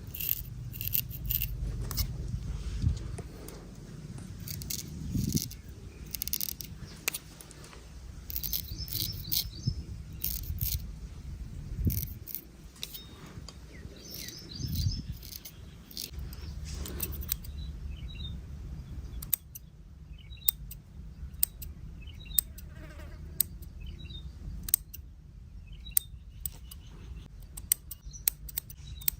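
Barber's scissors snipping hair: many short, sharp metallic snips and clicks at an irregular pace, some with a brief ring.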